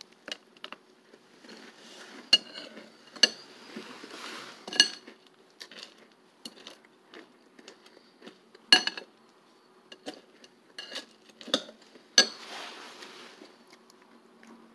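Metal spoon clinking against a ceramic cereal bowl while eating cereal. About a dozen irregular sharp clinks, each with a brief ring, the loudest about nine and twelve seconds in.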